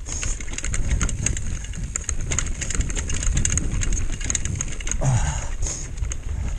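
Mountain bike riding fast over a rocky trail: a steady rumble of tyres and wind on the camera mic, with constant rattling clicks from the bike jolting over stones. A short grunt from the rider comes about five seconds in.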